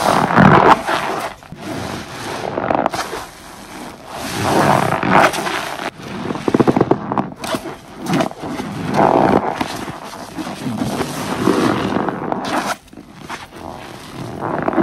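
A sponge full of thick dish-soap lather squeezed and kneaded over and over in gloved hands: wet squelching and crackling of bursting bubbles, in swells a couple of seconds apart, with a quick run of crackles about seven seconds in.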